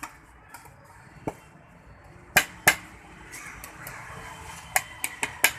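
About eight sharp knocks and clacks of kitchen utensils striking a board or counter while sandwiches are made. The two loudest come close together about halfway through, and a quick run of four follows near the end.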